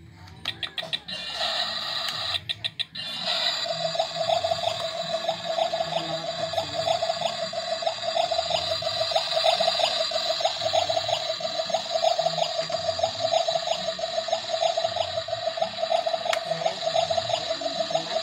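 Toy kitchen stove's electronic cooking sound effect from its small speaker, switched on at the burner knob. A few plastic clicks come first, then from about three seconds in a steady, fluttering buzzy tone with a hiss over it runs on without a break.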